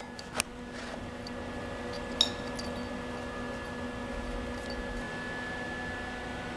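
Two light metallic clinks, steel parts being handled, about half a second and two seconds in, the second ringing briefly, over a steady shop hum.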